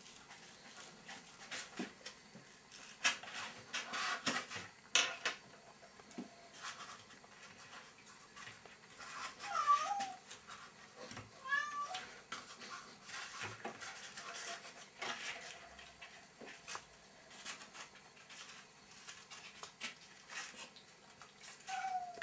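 A cat meowing a few times, short calls that bend up and down in pitch, in the middle and again near the end. Between them, light rustling and crinkling of paper being handled.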